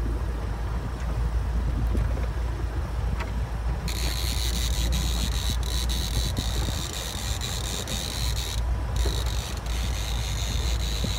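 A small boat's outboard motor runs steadily at trolling speed with wind and water noise. About four seconds in, a fishing reel starts a fast ratcheting click that goes on, pausing briefly near nine seconds.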